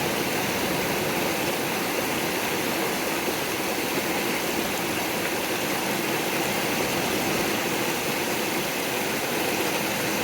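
A strong, silt-laden river rushing steadily, an even wash of water noise.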